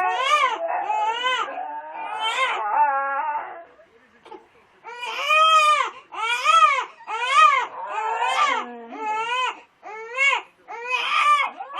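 Baby crying in a run of rising-and-falling wails, one after another with short breaths between. There is a brief pause about four seconds in.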